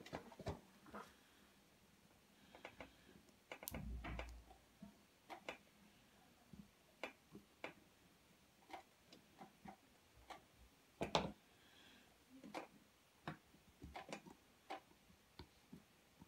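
Faint, irregular small clicks and taps of hands working with thin wires and small tools, joining several negative leads together. A low thump comes about four seconds in and a louder click about eleven seconds in.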